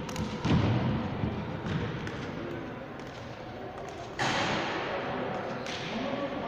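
A basketball thudding on a hardwood gym floor, with players' voices echoing in the hall. About four seconds in, a louder rush of noise sets in suddenly.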